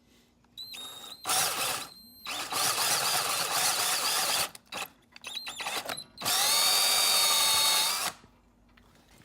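Power drill boring out a hole with a larger bit, enlarging it to take a tapped coolant temperature sensor: several short runs of the drill, then a steady run of about two seconds with an even motor whine, stopping near the end.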